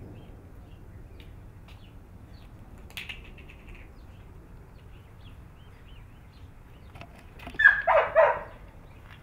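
Chocolate Labrador puppy giving a quick run of about three short, high-pitched yips near the end.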